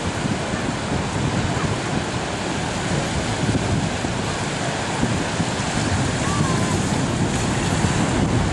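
Ocean surf: small waves breaking and washing steadily, with wind rumbling on the microphone.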